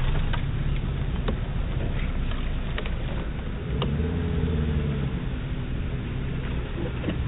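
Suzuki Jimny 4x4's engine pulling slowly over rough dirt, revving up and back down briefly about four seconds in, fading a little as it moves away, with scattered sharp clicks.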